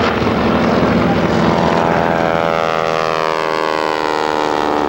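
A formation of World War II piston-engine propeller warbirds flying past with a loud, steady roar. From about halfway through, the engine drone falls steadily in pitch as the aircraft pass and move away.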